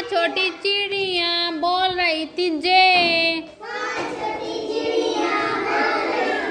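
Young children singing a Hindi counting rhyme in high voices. The first few seconds are clear, sung lines; from about four seconds in, many voices sing together in a looser group chorus.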